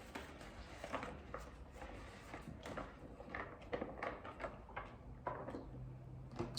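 Eating at a table: a run of soft, irregular clicks, taps and rustles from chewing and from food, sauce dishes and utensils being handled.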